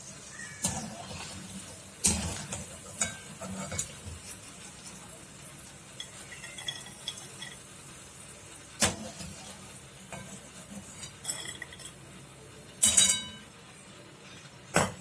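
Crisp deep-fried masala peanuts rattling and clinking on a plate as they are stirred and tossed, with a few sharper, louder knocks along the way. The dry rattle is the sign that the peanuts are fried crunchy.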